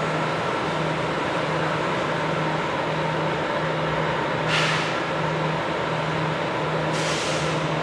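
Steady mechanical drone of circus machinery, which the filmer believes is running down below, with a low hum pulsing a little faster than once a second. Two short hisses cut in, about four and a half and seven seconds in.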